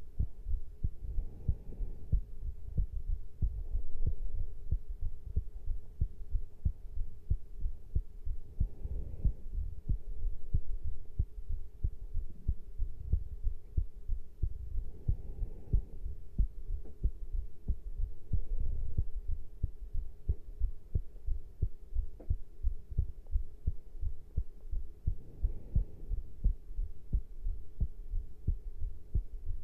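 A human heartbeat after caffeine intake: a steady rhythm of low thuds, several a second, with a soft swell of noise every few seconds and a faint steady hum underneath.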